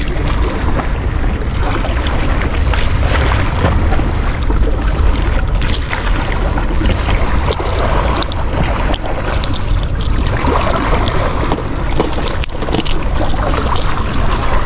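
Wind buffeting the microphone over the wash of sea waves: a heavy, steady rumble with a hiss on top, broken by many small clicks and knocks.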